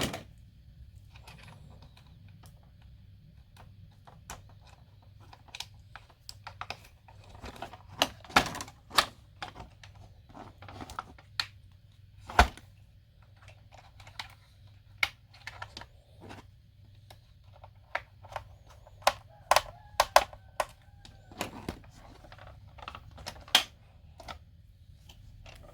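Hard plastic parts of a toy RC dump truck being handled: irregular clicks, taps and knocks as the battery is plugged back in and the compartment is closed, with one sharp knock right at the start and another about 12 seconds in.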